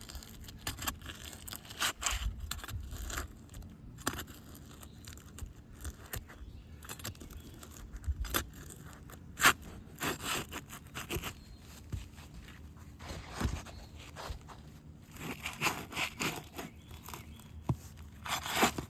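Pry bar scraping and crunching under asphalt roof shingles, with irregular sharp knocks, as the shingles' seal strips are broken loose to pull out a damaged shingle.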